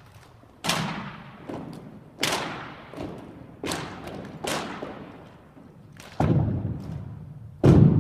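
A rifle drill team's routine: about nine sharp knocks and thuds at uneven intervals from rifles and boots striking. Each one rings out with a long echo, and the loudest comes near the end.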